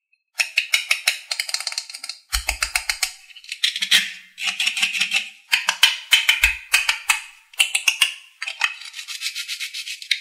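Hands handling a textured plastic toy melon make runs of rapid scratchy, crackling clicks, each lasting about half a second to two seconds, with two dull bumps of the toy being handled.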